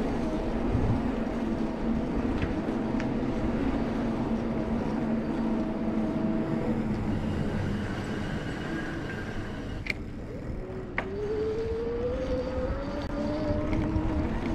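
Street noise heard while cycling: a steady rush of wind and road noise with a low motor hum. Two sharp clicks come about ten seconds in, then a motor whine rises slowly in pitch.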